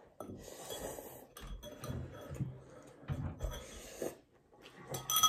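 Noodles being slurped and eaten from a bowl, a few short noisy slurps. A metal spoon clinks once against a ceramic bowl at the very end.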